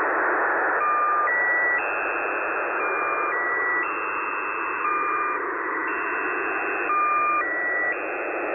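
Shortwave single-sideband reception of The Squeaky Wheel, a Russian military network: its channel marker, a repeating sequence of steady electronic tones stepping between several pitches, cycling about every three seconds, over constant radio static hiss. The first second is hiss alone before the tones start.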